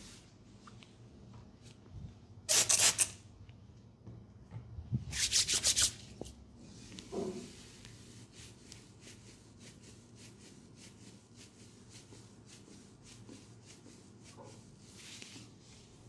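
Hands rubbing and kneading shoulders through a cloth cape during a massage. There are two louder bursts of quick strokes, about three and five seconds in, then softer, even rubbing strokes several times a second.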